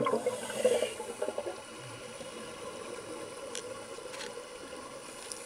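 Underwater sound through an underwater camera housing: a steady hiss with scattered clicks and crackles, louder and busier in the first second, with a faint steady hum underneath.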